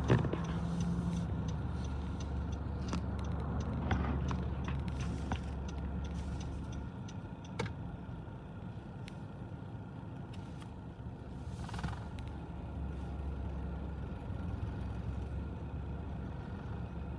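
Road vehicles idling in stopped traffic: a steady low engine rumble, with a few faint clicks and knocks.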